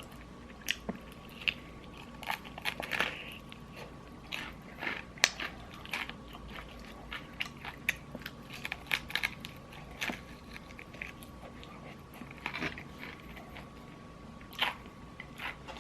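Close-up eating sounds: biting into and chewing crispy fried chicken, with irregular crunches and crackles of the batter.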